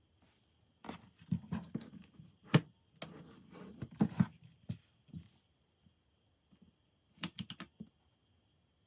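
Keys clacking on a mechanical keyboard in irregular strokes, some heavier knocks among them, then a quick run of four keystrokes near the end.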